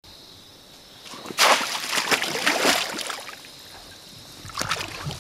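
Shallow muddy water splashing and sloshing as a man wades in and plunges a bamboo fish-cover basket down over the water, loudest from about a second and a half in to three seconds, with a shorter splash near the end.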